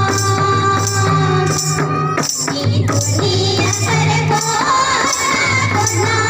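Music: a song with a steady beat, a repeating bass line and a singing voice that is clearest in the second half.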